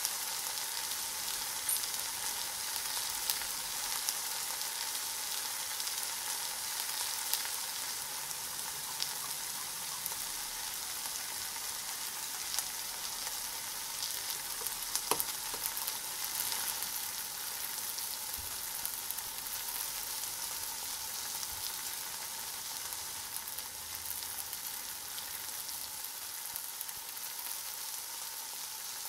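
Steady hiss with scattered faint crackles, and a single sharp clink with a short ring about 15 seconds in, like a metal spoon striking the glass bowl.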